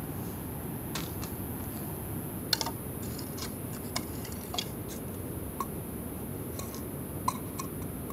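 Scattered light clicks and knocks of split firewood pieces being handled and set against one another on gravel, the sharpest about two and a half seconds in and another near the end, over a steady low background rush.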